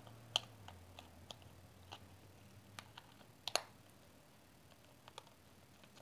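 Faint, scattered plastic clicks and taps from a Sony remote control being handled as its battery cover is fitted and snapped shut, the sharpest a quick double click about three and a half seconds in.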